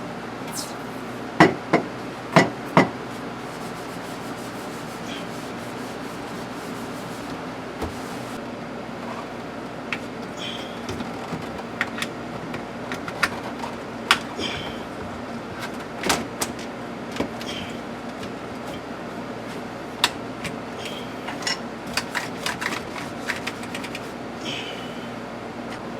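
Rubbing and handling of a plastic car console while it is cleaned: a steady scrubbing hiss with scattered sharp clicks and knocks, including a quick group of four loud knocks about a second and a half in.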